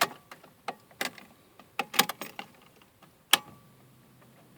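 Car keys jangling and clicking in a series of sharp knocks as they are handled at the ignition of a 2006 Mercedes CLK, the loudest click at the start and another about three seconds in; a faint steady low hum follows the last click.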